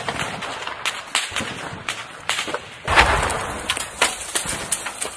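Gunfire in a firefight: scattered sharp shots and cracks, with a louder, longer blast of noise about three seconds in.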